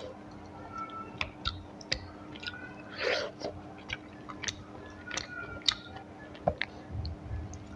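Close-up chewing and mouth sounds of a person eating rice and curry: irregular wet smacks and clicks, with a longer, louder stretch of chewing about three seconds in.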